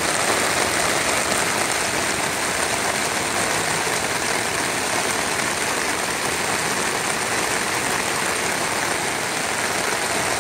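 Heavy rain falling steadily on a McKinley tent, heard from inside the tent.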